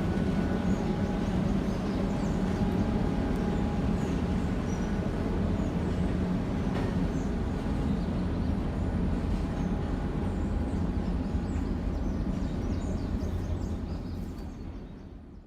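A train rolling past: a steady rumble of rail cars on the track, with a faint steady ringing tone above it. It fades away near the end.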